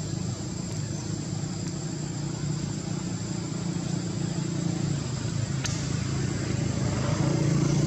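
Steady low hum of an engine running, with a thin high steady whine above it.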